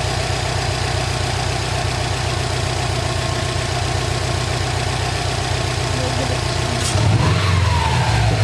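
Subaru WRX's turbocharged flat-four engine idling steadily with an even low pulse, fitted with a new K&N air filter. About seven seconds in there is a click and the engine sound grows louder and fuller.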